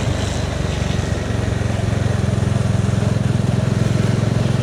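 Bajaj Dominar 400's single-cylinder engine running under way, heard from the riding motorcycle; the engine note eases briefly near the start, then pulls steadily again.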